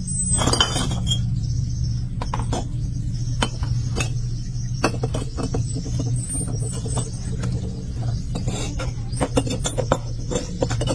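Hollow fired-clay bricks clinking and knocking against one another as they are lifted off a pile and set into a plastic basin: a run of irregular sharp clinks over a steady low hum.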